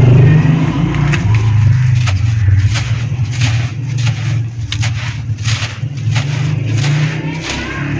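Dry, dusty dirt clumps crushed and crumbled by hand, with many sharp crunches and crackles as the crumbs pour onto loose dry soil, over a heavy low rumble picked up close to the microphone.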